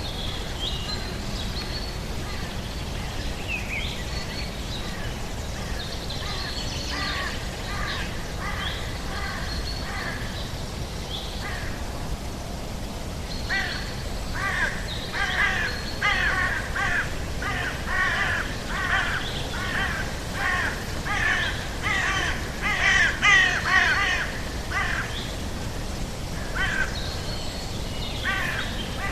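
Birds calling outdoors: short high whistled notes, then a long run of repeated harsh calls about twice a second starting about halfway through, loudest near the end, over a steady low background rumble.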